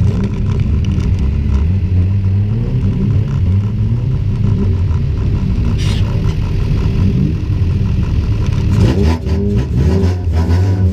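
A race car's engine revving and easing off, heard from inside its stripped-out metal cabin, its pitch rising and falling with the throttle. A sharp knock about six seconds in, and a burst of knocks and clatter near the end as the engine climbs in pitch again.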